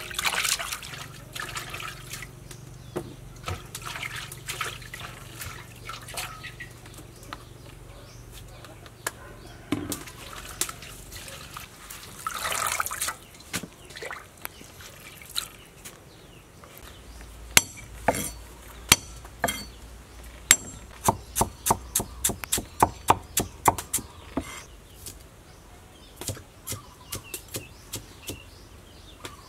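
Water sloshing and splashing as vegetables are washed by hand in a metal basin, then, about halfway through, a cleaver chopping on a wooden cutting board: a run of sharp knocks, up to about four a second, thinning out near the end.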